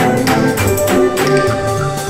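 Background music with a steady beat: held melodic notes over light percussion.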